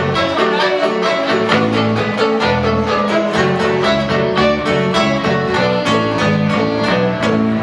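Live country band playing: fiddle out front over strummed acoustic guitar, electric guitar and bass, with a steady rhythm.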